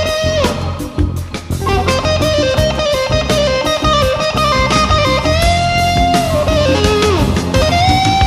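Background rock-blues music: an electric guitar plays a lead line of long held notes with bends sliding up and down, over a bass and drum backing; near the end it bends up into a long sustained note.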